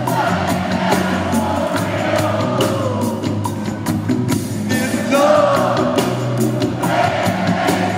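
Live reggae band playing: a singer's voice over a steady drum beat and bass, heard from within the crowd.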